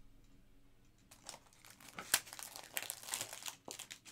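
Plastic crinkling and rustling as a trading card is handled into a magnetic one-touch card holder, with a sharp click about two seconds in.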